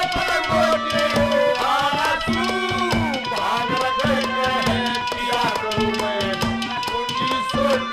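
Instrumental interlude of Haryanvi ragni folk music: harmonium playing a melody over held tones, with hand drums and a clay pot struck in a quick, steady rhythm.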